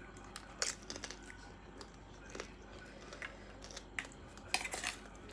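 Close-up eating sounds: scattered crunches, wet clicks and chewing, with a quick cluster of crunches about four and a half seconds in.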